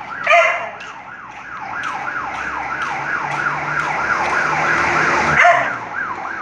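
A siren yelping, its pitch sweeping up and down about three times a second. It grows louder until about five seconds in, then drops away.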